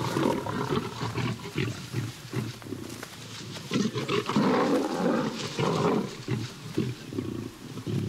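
Lions snarling and roaring as they fight, in a string of short harsh bursts that are loudest in the middle.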